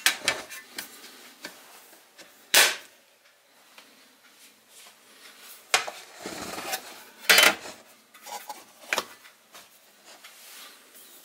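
Sheet-metal lids being slid onto toast-bread tins: scraping with several sharp metal clanks, the loudest about two and a half and seven and a half seconds in.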